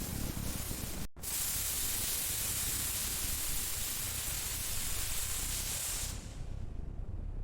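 Steady spraying hiss, like pressurised air or spray, that cuts out for an instant about a second in and resumes; its highest part falls away about six seconds in, leaving a duller hiss.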